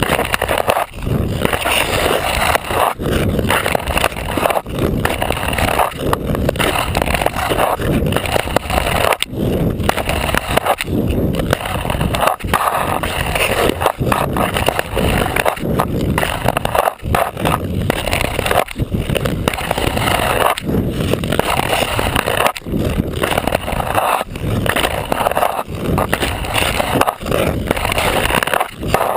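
Ice skate blade gliding and scraping over snow-dusted ice, heard very close from a camera strapped to the skate. The steady rasp breaks off briefly every second or two as the skate lifts between strides.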